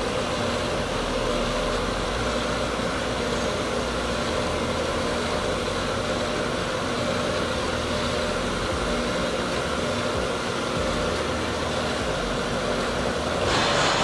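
Bench grinder running steadily, its wheel grinding metal off a C6 Corvette ZR1 six-piston brake caliper held against it to make it fit. A louder, harsher stretch comes near the end.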